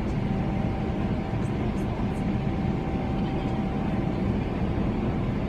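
Steady cabin noise inside a Boeing 777-300ER airliner climbing out after takeoff: the even roar of its GE90 jet engines and the airflow over the fuselage, with a faint steady hum above it.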